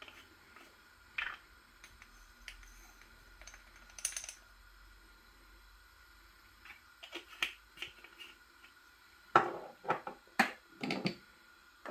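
Light clicks and taps of plastic spice jars and their lids, and a spoon against a glass mixing bowl, with a quick run of louder clicks about nine to eleven seconds in.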